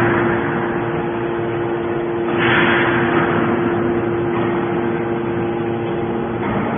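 Hydraulic scrap metal baler running: a steady hum from its motor and hydraulic pump, with a rush of noise swelling about two and a half seconds in and fading.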